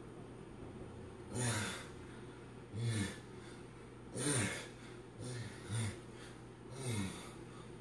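A man's hard exhales with short grunts that fall in pitch, one with each strain of his dumbbell raises. There are about six, roughly one every second and a half, with two close together a little past the middle.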